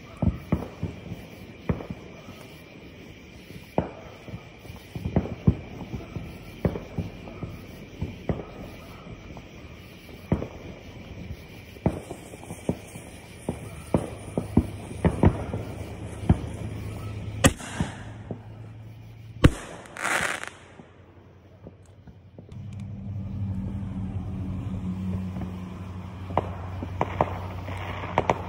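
Fireworks and firecrackers going off: many sharp bangs and pops at irregular intervals, with two hissing bursts about two-thirds of the way through. After a short lull a steady low hum comes in under a fresh run of pops near the end.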